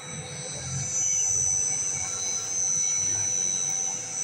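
Electric cold oil press running, with a steady high-pitched whine over a low rumble. It grows louder about a second in.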